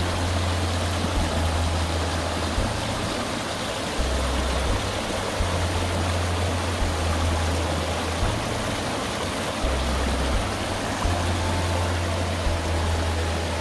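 Steady rush of a mountain stream flowing.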